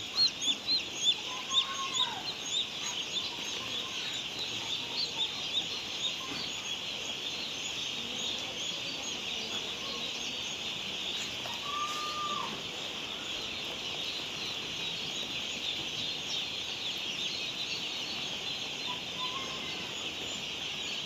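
A large flock of poultry chicks peeping continuously in a dense, high-pitched chorus, with louder individual peeps over the first few seconds. A lower, drawn-out call stands out twice, once about two seconds in and once near the middle.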